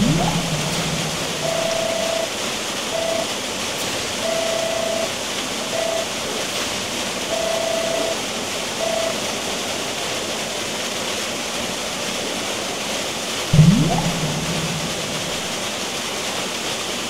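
Steady rush of falling water from a waterfall, overlaid with edited sound effects. A sudden low impact with a quick rising sweep comes at the start and again about 13.5 seconds in, and a run of flat electronic beeps in long-short pairs, three times over, comes between about 1.5 and 9 seconds in.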